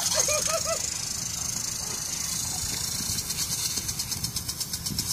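Lawn sprinkler's water jet hissing as it sprays, breaking into a rapid even pulsing of spray about three seconds in. A quick run of short high squeaks comes near the start.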